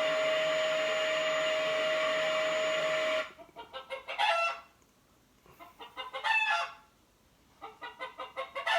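A vacuum cleaner runs with a steady hum and stops about three seconds in. Then a hen clucks in three bouts of quick, short clucks, each ending in a louder call.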